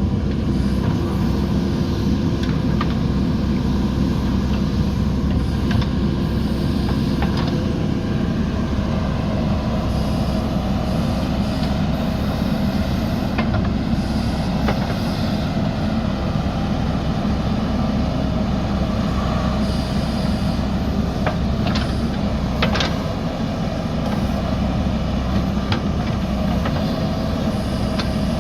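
JCB backhoe loader's diesel engine running steadily under load, with occasional sharp metallic clanks from the machine at work.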